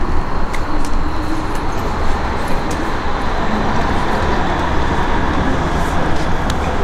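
Steady rushing, rumbling noise with no clear rhythm, typical of wind buffeting a camera microphone.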